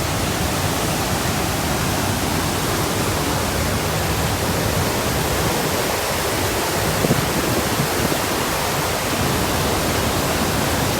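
Waterfall: heavy water pouring and crashing close by, a loud, steady roar.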